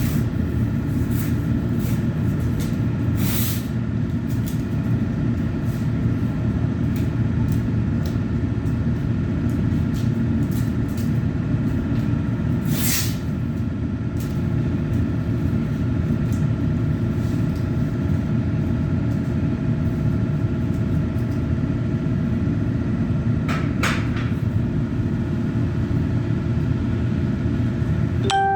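Steady low machine rumble with a few faint steady tones above it, and occasional sharp clicks, the clearest about 3, 13 and 24 seconds in.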